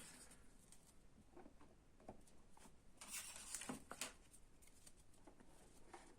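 Faint handling of small 3D-printed PETG parts being fitted together: scattered light clicks and rubbing, with a short cluster of clicks and scraping about three seconds in.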